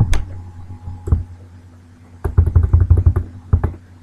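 Computer keyboard keystrokes: a couple of single key presses, then a quick run of about ten presses in a second and one more, as a stretch of code is deleted. A steady low hum runs underneath.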